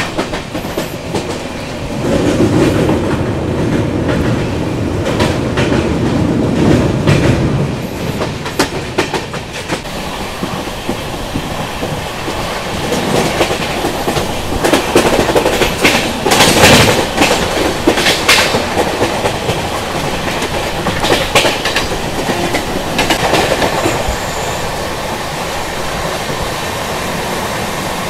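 Express passenger train running, heard from on board: wheels clatter over the rail joints in a steady run with two louder stretches of clatter.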